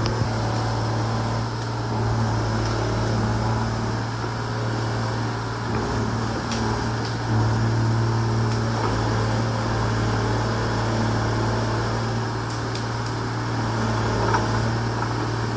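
Excavator's diesel engine running at a steady, constant drone, with a few faint clicks.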